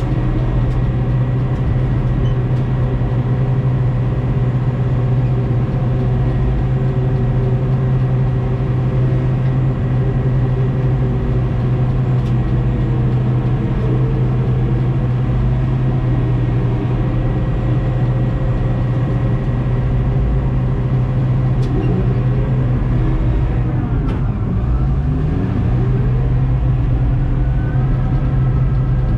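Bulldozer diesel engine running steadily and loudly as heard from the cab, its note dipping and then recovering about three-quarters of the way through.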